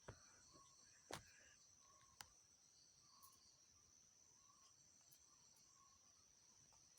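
Near silence: faint room tone with a steady high hiss and a few faint clicks, the clearest about one and two seconds in.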